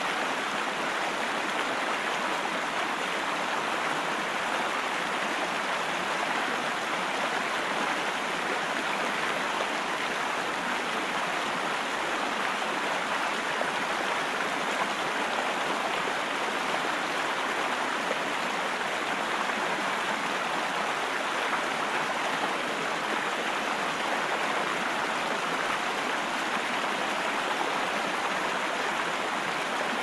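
Steady, even rush of flowing water.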